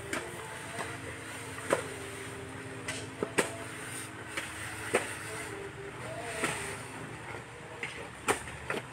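Hand tools knocking on soil and stones at a graveside: about five sharp knocks a second or more apart, with faint voices in the background.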